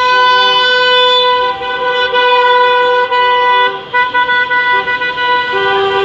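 Several vehicle horns sounding at once in long, held honks, two steady pitches overlapping, with a short break about four seconds in.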